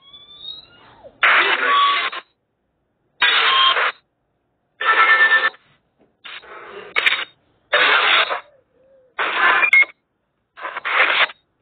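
Ghost-hunting app's spirit box output: short bursts of radio-like static, each under a second and cut off sharply, about seven of them with silence between. A faint rising whistle sounds right at the start.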